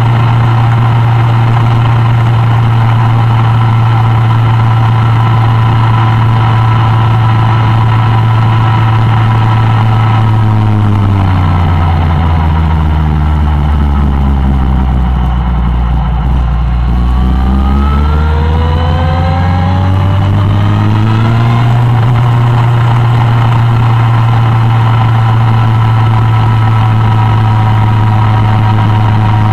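Suzuki Bandit 1200's inline-four engine under way at steady revs. About ten seconds in, the revs fall away smoothly going into a bend, then climb again as the bike accelerates out and settle back to a steady pitch.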